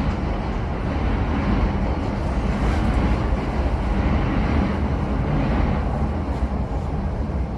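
Steady low rumble of passing city traffic.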